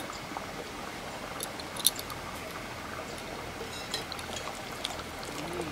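Raw mustard oil poured from a steel bowl onto a yogurt and ground-mustard paste in a steel plate, then fingers starting to work the paste, with a few sharp clicks, the loudest about two seconds in.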